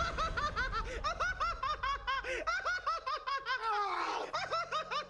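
Two actors breaking character into uncontrollable laughter: a fast run of high-pitched giggling pulses, about four a second.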